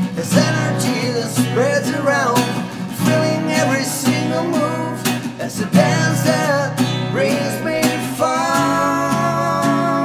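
Acoustic guitars strummed as accompaniment to a male voice singing a melody, which settles into a long held note about eight and a half seconds in.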